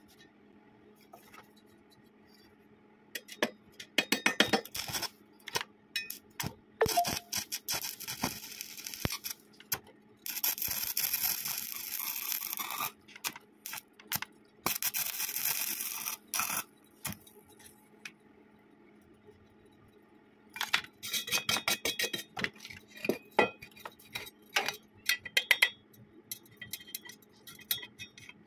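Stick-welding arc crackling on thin-walled square steel tubing: the electrode arcs in many short crackling bursts, with two steady runs of crackle lasting a few seconds each.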